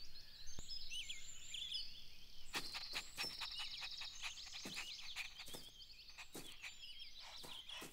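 Faint birdsong ambience: small birds chirping and twittering, with a run of light taps starting about two and a half seconds in.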